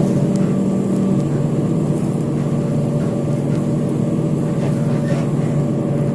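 Bus engine and road noise heard from inside the passenger cabin: a steady low drone as the bus drives along.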